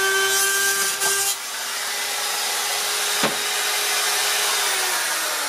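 RotoZip spiral saw with a guide-point bit routing through ceiling drywall around a bathroom exhaust fan housing, its motor whining steadily. A little over a second in the sound changes to a steady hiss as the cut ends. There is one sharp click near the middle, and the whine falls in pitch near the end as the motor winds down.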